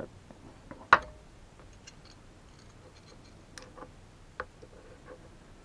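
A sharp click about a second in, then a few faint light ticks: a small metal workpiece and hand tool being handled.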